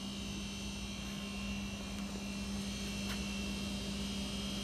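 A steady low hum with a fainter high whine above it, from a running motor or fan, with one faint click about three seconds in.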